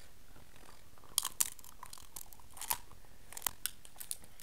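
King crab shell being cracked and pulled apart by hand: a run of sharp, irregular crackles and snaps starting about a second in.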